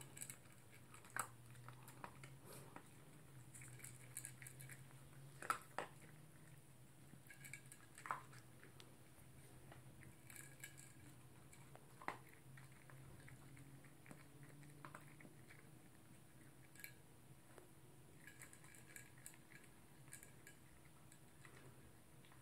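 Toy poodle eating from a plastic bowl: faint, irregular crunches and clicks of food and teeth against the bowl, a dozen or so spread out with gaps between.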